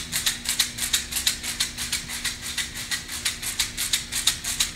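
A hand rattle shaken in a steady, fast rhythm of about six or seven shakes a second, with a faint steady hum underneath.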